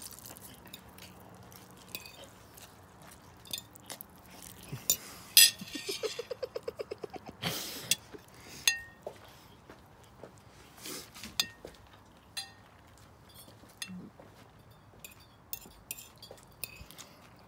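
Eating noodles with a fork off a plate: scattered clicks and clinks of the fork tapping and scraping on the plate, with mouth sounds of eating. Near the middle comes a quick rattling run of about a dozen pulses, followed by a short rush of noise.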